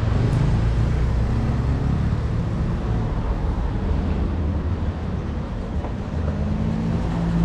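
Royal Enfield Classic 350's single-cylinder engine running steadily while being ridden slowly, a continuous low rumble whose note shifts slightly about six seconds in.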